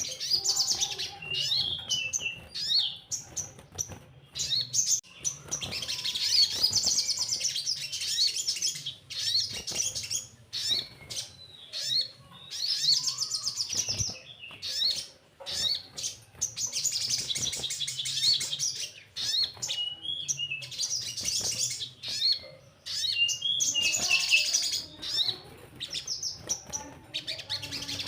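Sogon, a sunbird, singing high, rapid trills and chirps in phrases of a few seconds with short pauses between them.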